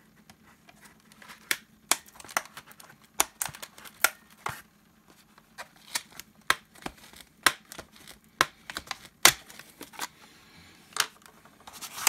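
Cardboard packaging and plastic retaining tabs being handled and worked loose by hand: irregular sharp clicks, scrapes and rustles, about one every half second to a second.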